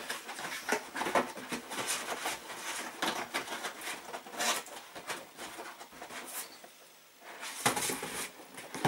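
Cardboard packaging box being handled and turned over: a run of cardboard scraping and rubbing against hands and the tabletop, with a louder scrape near the end.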